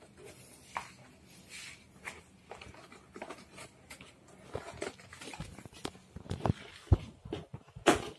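Scattered clicks, knocks and rustles of cardboard and foam packing as a new Element Ecosmo Z10 folding bike is handled and unwrapped. A couple of sharper knocks come about seven and eight seconds in.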